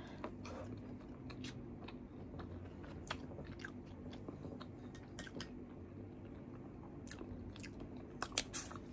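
Close-miked chewing and mouth sounds of someone eating a handful of rice and sautéed string beans with sardines, with many small wet clicks. A couple of sharper clicks come near the end.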